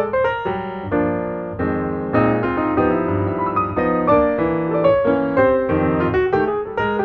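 Background piano music: a quick, busy melody with chords.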